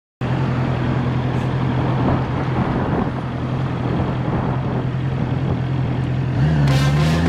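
Motorcycle engine idling with a steady low hum, then revving up about six seconds in as the bike pulls away.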